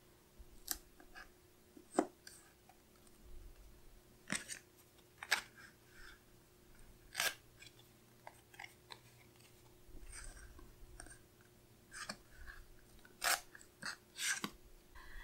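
Washi tape being unrolled, torn and pressed onto planner paper: scattered short crackles, taps and soft paper rustles.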